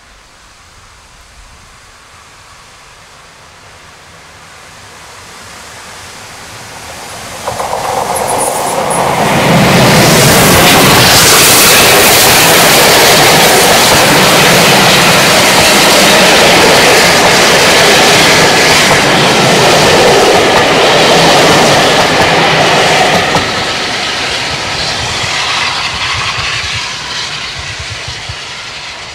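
Steam-hauled train passing close by: it approaches slowly, becomes much louder about seven seconds in and stays loud for around fifteen seconds as the locomotive and carriages go past, then fades away.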